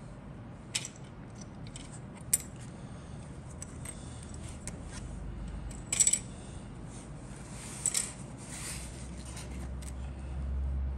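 Plastic parts on sprues from a Fujimi 1/48 Mirage III C model kit clicking and clattering as they are handled and set down on a cutting mat. There are several sharp clicks, the loudest about two and a half and six seconds in.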